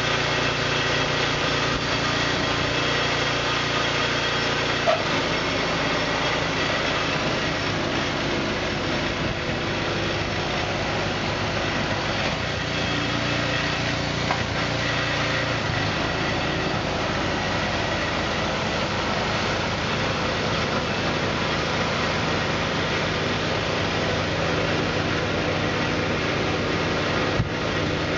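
Two-stage snow blower's small engine running steadily under load while the machine throws snow, its note shifting slightly a couple of times.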